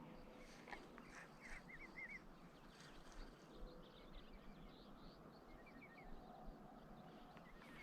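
Faint outdoor ambience with small birds calling: a few quick warbled chirps about one and a half to two seconds in and again near six seconds, over a soft steady hiss.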